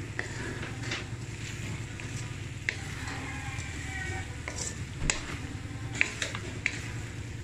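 Wooden spatula stirring and scraping ground pork and diced potato in an aluminium wok, with the food sizzling in the pan. The spatula knocks sharply against the pan several times, over a steady low hum.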